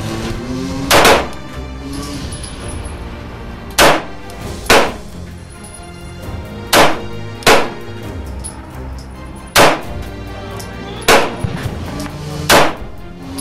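Eight shots from a Lionheart LH9 9mm pistol, fired one at a time at an uneven pace, some in pairs less than a second apart and others about two seconds apart. Background music plays steadily underneath.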